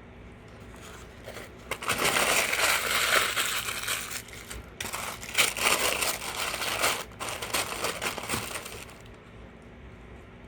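Paper food wrapper being crumpled and crinkled in loud bouts, with two short breaks, as a chili dog is pulled from its wrapper.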